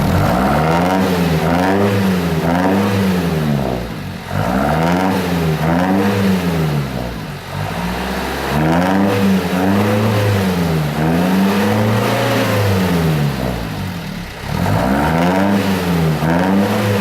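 Engine of a home-built mini Mack-style truck, revved up and down in quick swells about once a second, in four runs with brief dips between. It has a fruity note.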